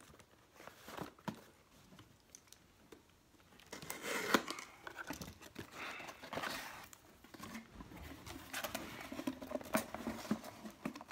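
A cardboard subscription box being opened and its paper contents handled. Faint clicks at first, then from about four seconds in a busy run of rustling, crinkling and light scraping, with one sharper click.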